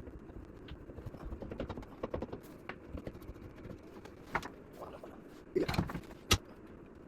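Scattered light clicks and knocks of tools and shower-unit parts being handled, with a few louder knocks and one sharp click near the end.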